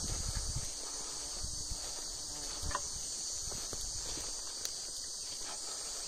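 Footsteps crunching on stony ground, with a steady high-pitched insect drone from the trees.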